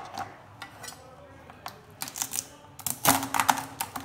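Cooked mud crab being picked apart by hand on a plastic cutting board: small clicks and crackles of shell. The clicks and scrapes grow busier and sharper from about two to three seconds in.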